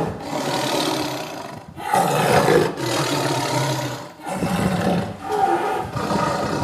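Tiger roaring: a series of long, deep, rasping roars, with short breaks about two and four seconds in.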